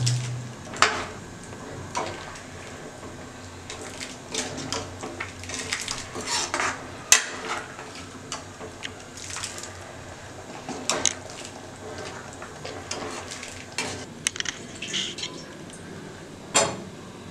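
A steel ladle stirring thick chickpea curry in a steel kadai, scraping and clinking against the pan at irregular intervals, with a few sharper clinks.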